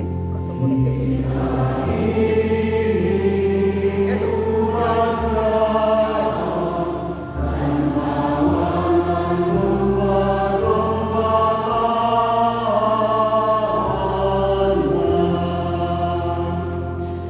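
A group of voices singing a church hymn together in harmony, over held bass notes that change every second or two. The singing grows quieter near the end.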